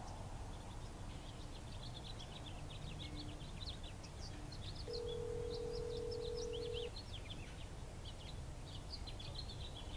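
Telephone ringback tone through a smartphone held to the ear: one steady ring lasting about two seconds, starting about five seconds in, the sign that the call is ringing and not yet answered. Small birds chirp throughout.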